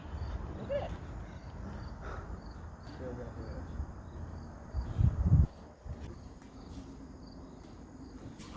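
Faint insects chirping over a steady low rumble, with a loud low thud about five seconds in.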